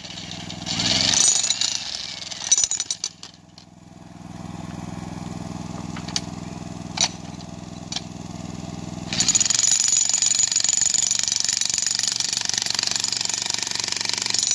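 Electric jackhammer pounding its chisel into rocky ground in runs. There is a short burst about a second in, then a lull with a steady low hum and a few sharp knocks, then a long unbroken run from about nine seconds in that stops right at the end.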